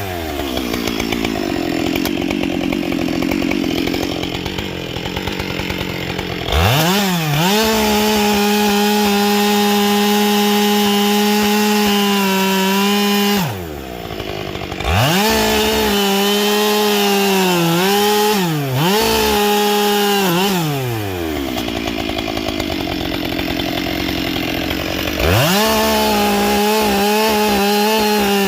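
Husqvarna 572 XP two-stroke chainsaw, fitted with a carbide saw chain, run at full throttle cutting wood. Its engine pitch drops and climbs back several times, and sounds lower and rougher in two longer stretches where it is under load in the cut.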